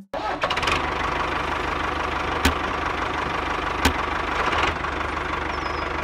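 Small electric gear motor of a homemade model tractor running steadily with a fast rattle as it pulls a plough through sand, with two sharp clicks about two and a half and four seconds in.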